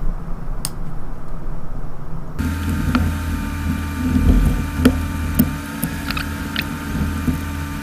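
Steady hum that gets louder and fuller about two and a half seconds in, with small scattered clicks and taps as gloved fingers work at the internal parts of an opened Samsung Galaxy S7 Edge smartphone.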